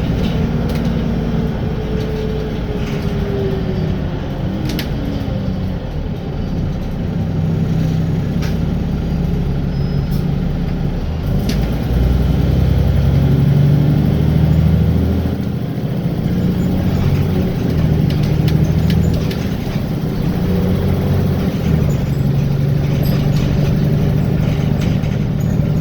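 Wright Gemini 2 VDL DB300 double-decker bus heard from inside, its engine running as the bus drives along. The engine note falls in the first few seconds and then grows into a louder drone from about twelve seconds in and again near the end, with a few sharp clicks early on.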